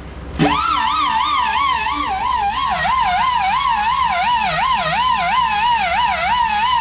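Music: a high warbling lead tone, wavering up and down in pitch a few times a second, which starts suddenly just under half a second in.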